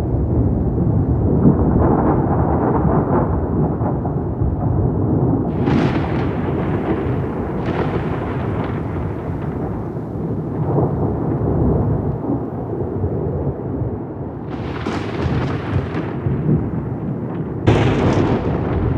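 Thunderstorm: continuous deep rolling thunder, broken by sharp cracks about five and a half seconds in, at about seven and a half seconds, at about fourteen and a half seconds and shortly before the end.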